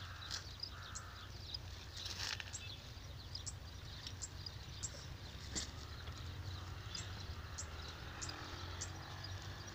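Faint rural outdoor background: a steady low rumble with short high chirps every half second or so, and a brief rustle about two seconds in.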